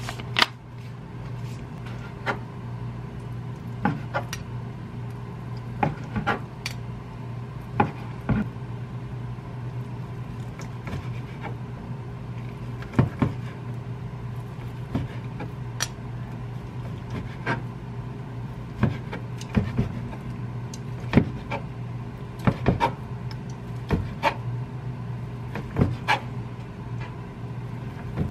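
Kitchen knife slicing boiled pork on a metal tray while stainless steel tongs hold the meat: short, sharp knocks and clicks at irregular intervals, every second or two, over a steady low hum.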